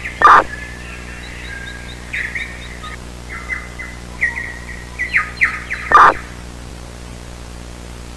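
Birds chirping in quick runs of short, repeated notes, over a steady low hum. Two loud, brief sounds cut in, one near the start and one about six seconds later.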